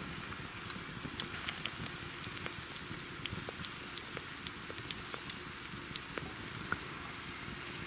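Wood fire crackling with scattered sharp pops, while hot water is poured slowly from a kettle into a drip-bag coffee.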